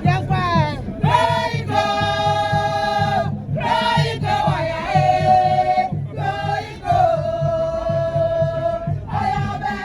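Music with voices singing long, held notes in a choir-like style over a steady bass beat.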